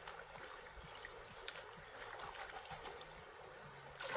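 Stream water sloshing and trickling around a person wading and handling a submerged fish trap, with a louder splash near the end as the trap is lifted out of the water.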